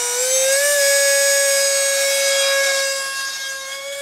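55 mm electric ducted fan, driven by an Emax inrunner motor on a 3S LiPo, running at full throttle: a high whine that rises in pitch as it spools up in the first second, then holds steady. It fades near the end as the hand-launched flying wing flies away.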